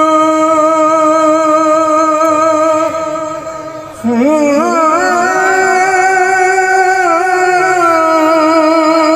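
A male naat reciter singing long held notes: a steady note fades out about three seconds in, then a new phrase starts about four seconds in, sliding upward and held with wavering ornaments.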